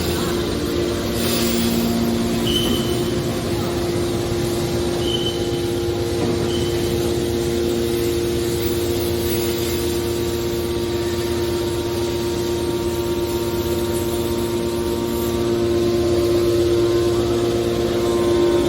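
Hydraulic scrap steel wire baler running: a steady machine drone with a held tone, with three brief high squeaks in the first few seconds.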